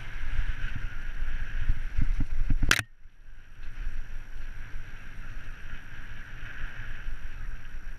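Mountain bike rolling fast over a rough grassy dirt track: a steady rushing noise over uneven low thuds and rattles from the bumps, with one sharp knock about three seconds in, after which the rumble briefly drops away.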